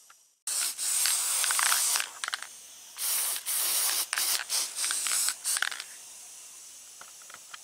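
Aerosol spray can misting guide coat over sanded body filler. It hisses in bursts: a long spray about half a second in, then a string of shorter ones, dying down to a faint hiss about six seconds in.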